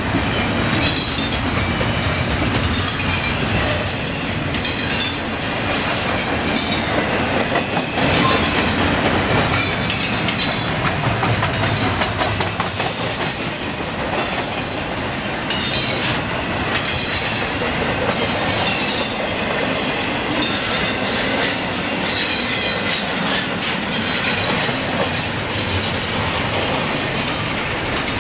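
Double-stack intermodal freight train rolling past: the steel wheels of its well cars run steadily over the rails with continuous rumbling and clatter.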